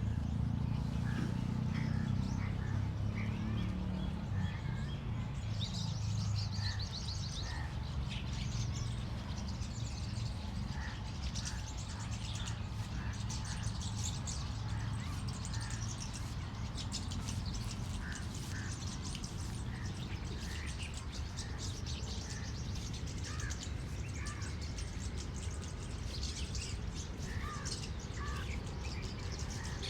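Small birds chirping, many short calls scattered throughout, with a crow calling among them and a low rumble that fades out over the first few seconds.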